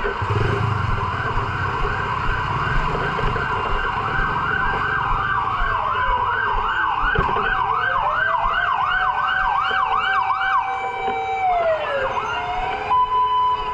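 Several emergency-vehicle sirens sounding at once. One runs a fast yelp, cycling up and down about twice a second, while others wail in slower rising and falling glides. Near the end a steady single-pitch tone takes over.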